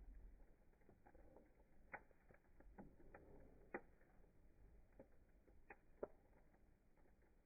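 Fire crackling faintly: irregular small pops and snaps, with a few sharper ones standing out.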